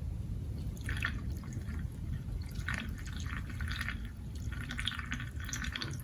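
Liquid being poured into a small chainsaw's tank, with irregular trickling and dripping over a steady low rumble.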